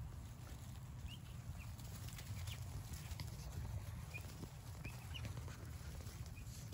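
Young turkey poults giving short, high peeps every second or so, with faint scratching and steps in wood-shaving bedding, over a steady low hum.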